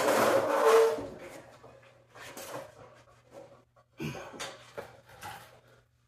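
Clanks and rattling from a Toro snowblower's metal auger housing being tipped up and handled. A loud clatter with a brief ring comes at the start, then a few lighter knocks.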